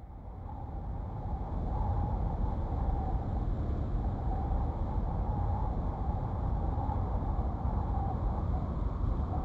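A steady low rumble, like a large engine or ship, fading in over the first second or two and then holding, with a wavering mid-pitched hum on top.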